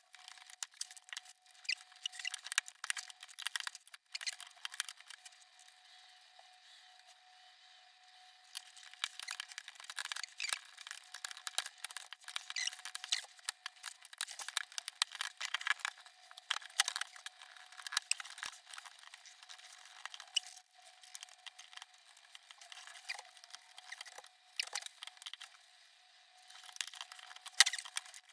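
Irregular small clicks, taps and scrapes of plastic and metal laptop parts being handled and pried loose during disassembly of a ThinkPad T520, busiest in the middle and near the end.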